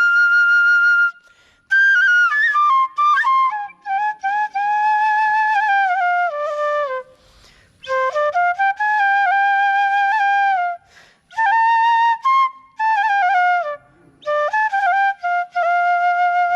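Solo bamboo flute (bashi) playing a slow folk melody in phrases, with long held notes, quick ornamental turns between them and short breaths between phrases.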